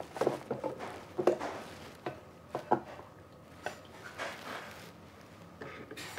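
Scattered light clicks and knocks of tableware on a restaurant table. Near the end a metal ladle strikes a plate as cubed radish kimchi is served.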